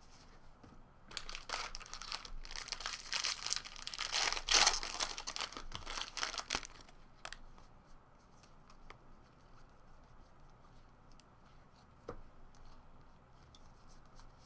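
Foil trading-card pack wrapper being torn open and crinkled for about five seconds, loudest midway, then quieter handling with a few faint clicks.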